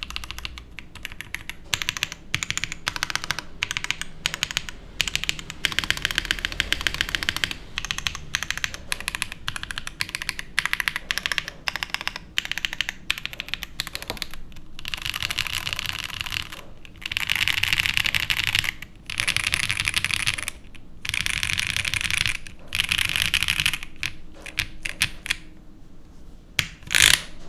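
Typing on a QK75 mechanical keyboard with stock-lubed Owlab Neon linear switches on a POM plate and GMK keycaps: a steady stream of key clacks, turning to fast, dense runs of keystrokes in the second half, with one louder stroke near the end.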